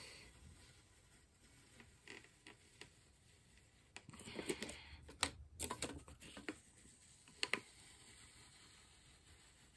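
Fingernails picking at and peeling a sticker off the back of a tin can: faint scratching with scattered small clicks and taps, busiest from about four to seven and a half seconds in.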